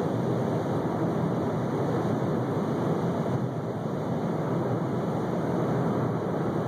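Steady road noise heard inside a car cruising on a highway: an even rumble of tyres and wind with no distinct events.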